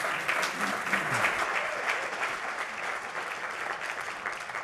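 An audience applauding, many hands clapping together, slowly fading near the end.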